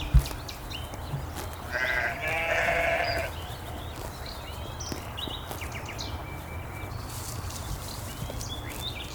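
A lamb bleats once, a call of about a second and a half starting a little under two seconds in. A sharp thump just after the start is the loudest moment.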